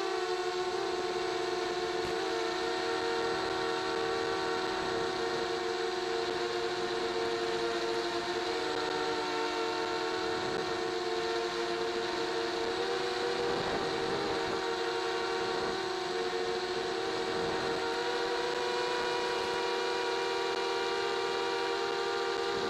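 Mini quadcopter's electric motors and propellers whining steadily in flight: a couple of held tones with higher overtones that waver slightly in pitch as the throttle changes, dipping briefly about nine and fourteen seconds in.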